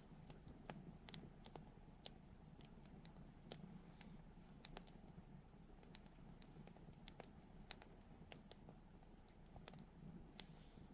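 Wood campfire crackling softly, with irregular sharp pops and snaps over a low rustle of the flames.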